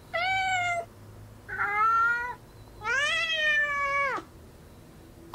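Three cat meows, the last the longest, rising and then falling in pitch, played back from a recorded sample in GarageBand's Animal Kingdom loop pack.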